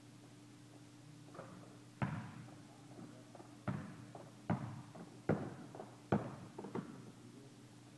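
Basketball bouncing on an indoor court floor: one hard bounce about two seconds in, then four even dribbles a little under a second apart, followed by a few lighter taps. A steady low hum runs underneath.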